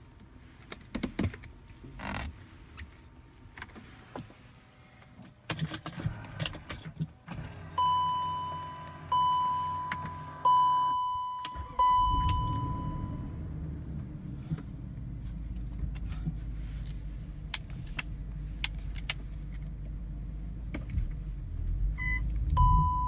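A car: clicks and small rattles, then four evenly spaced warning chimes, each ringing for about a second and fading. With the fourth chime the engine starts and runs at a steady idle, and another chime sounds near the end.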